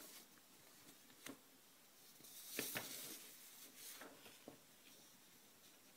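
Paper flashcards being handled: a few faint taps, then a paper rustle lasting about a second, about two and a half seconds in.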